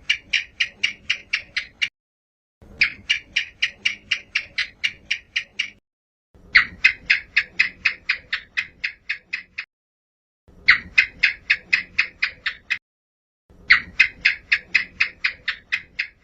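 House gecko (cicak) calling: five runs of rapid, evenly spaced chirps, about three to four a second and ten or so per run, with complete silence between runs.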